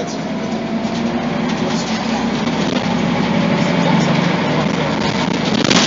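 Scania DC9 five-cylinder diesel engine of a Scania OmniCity articulated bus with a ZF automatic gearbox, running steadily and getting louder over the first four seconds. A short, sharp noise comes near the end.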